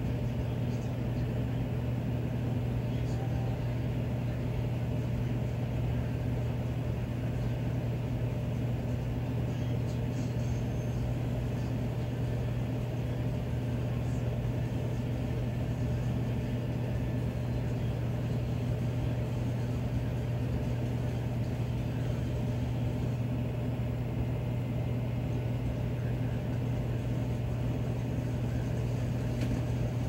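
Miller E2 furnace running in cooling mode, its blower moving air with a steady low hum.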